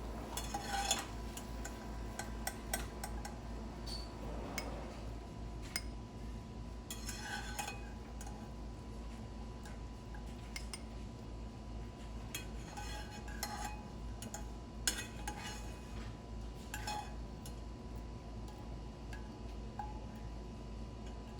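Kitchen utensils and dishes clinking and clattering now and then during food preparation, over a steady low hum.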